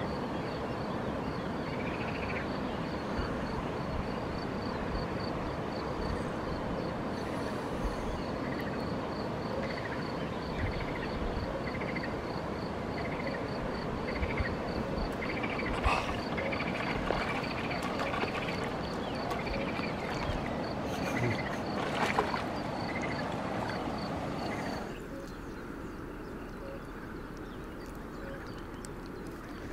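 Outdoor riverbank ambience: a steady hiss-like noise with a fast, high-pitched pulsing trill and scattered short chirping calls. About 25 seconds in, the noise drops sharply to a quieter background.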